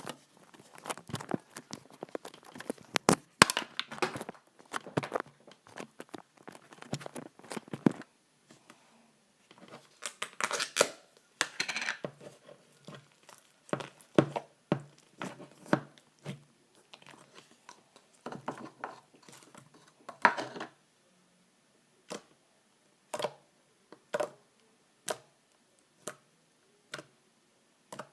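Slime being squeezed and poked by hand for ASMR: dense runs of sticky crackles and small pops, thinning near the end to single clicks about once a second.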